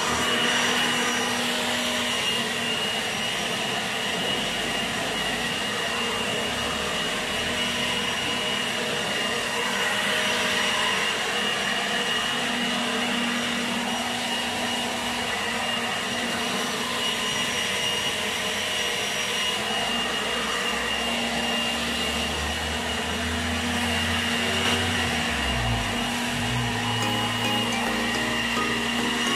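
Handheld electric leaf blower running steadily: a motor whine over a rush of air.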